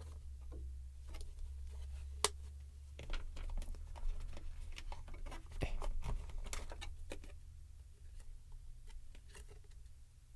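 Small clicks, taps and light rustles of hands handling the contents of an earphone box, irregular and close, over a steady low hum.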